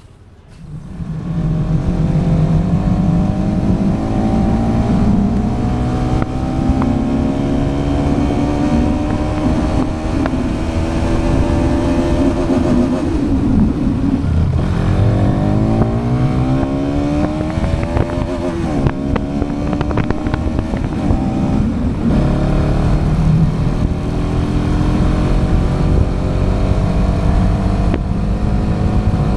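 Bajaj Pulsar NS200's single-cylinder engine pulling away and accelerating through the gears while riding. The engine note rises steadily and drops back at each gear change, over a steady low rumble.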